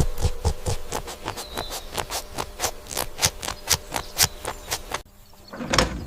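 A rapid, uneven run of sharp clicking taps, about four or five a second, that cuts off suddenly about five seconds in, followed by a single dull thump near the end.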